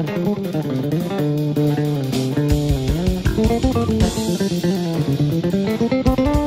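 Background music: guitar and bass guitar over a steady drum beat.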